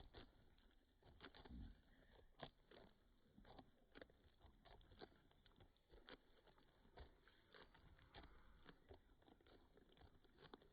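Chickens pecking: faint, irregular taps and clicks, several a second.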